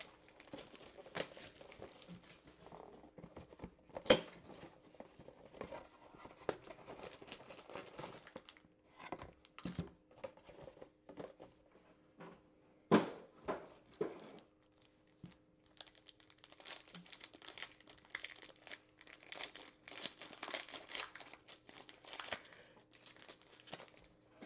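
Foil trading card pack crinkling and tearing as it is handled and opened, with a couple of sharp knocks, about four seconds in and about thirteen seconds in. The crinkling is busiest in the last third.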